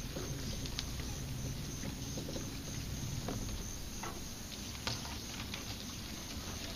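Steady low rumble with scattered light ticks and rustles, as a small boat moves slowly through tall marsh grass and the stems brush along its hull.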